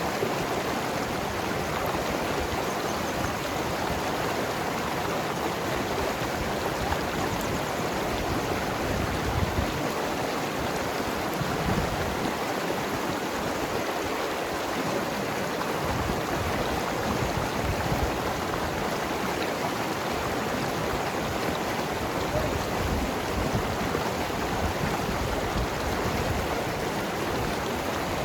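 Mountain river flowing and gurgling over rocks, a steady rush of water.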